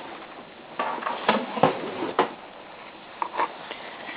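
A few scattered light knocks and scuffs over a quiet steady background, the sounds of a wooden yardstick being handled and set into the snow.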